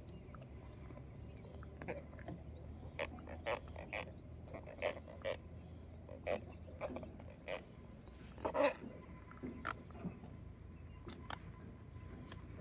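Irregular short knocks and taps, loudest in a cluster about two-thirds of the way through, over a low steady hum; a short high chirp repeats a few times a second for the first few seconds.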